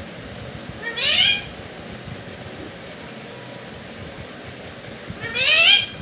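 Indian ringneck parakeet giving two short calls about four seconds apart, each rising in pitch.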